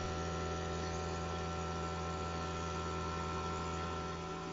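Fieldpiece VP85 vacuum pump running steadily with a low, even hum, pulling a vacuum on an evaporator coil through the refrigeration manifold while the coil is still above 10,000 microns.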